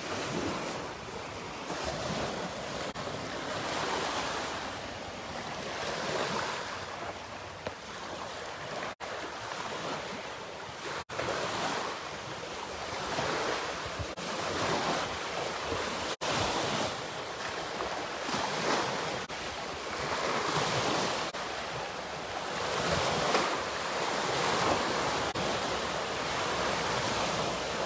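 Small lake waves washing onto the shore, a noisy wash that swells and falls every couple of seconds, with some wind on the microphone and a few split-second dropouts.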